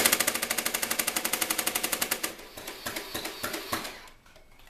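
A vintage air-powered Nerf Wildfire and a battery-powered Nerf Swarmfire firing fully automatic together: a fast rattle of shots, about nine a second, over a steady motor hum. About two seconds in it thins to scattered shots, which stop about four seconds in.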